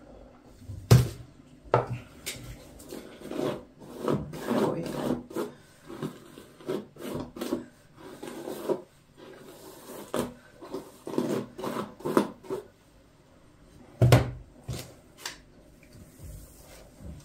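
Hairbrush bristles drawn through long wet hair, a rasping rub in uneven runs of strokes as the tangles are brushed out. A few sharp knocks stand out, about a second in and again near the end.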